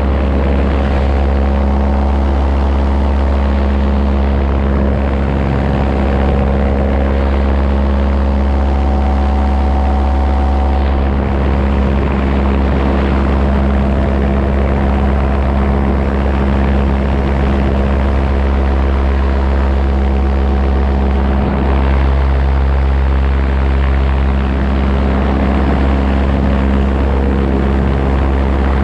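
Paramotor engine and propeller running at a steady cruise: a constant, unchanging drone.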